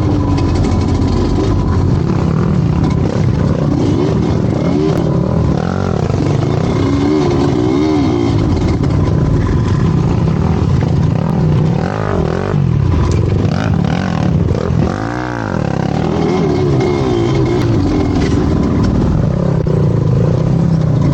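Motorcycle engine running under load with the revs rising and falling again and again, with one sharp rev up and back down near the end.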